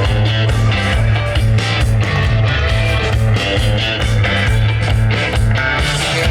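Rock band playing an instrumental passage: guitar over bass and a steady beat, with no vocals.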